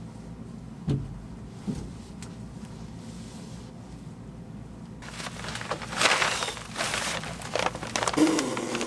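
Plastic vapor-barrier sheeting and a disposable coverall crinkling and rustling as someone crawls and shifts over them, with two dull thumps about a second in. The rustling grows louder and busier about five seconds in, full of small crackles and scuffs.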